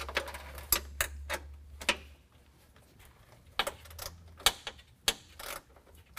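Ratcheting wrench clicking in short, uneven runs as an 8 mm nut is loosened on a bumper fastener bolt.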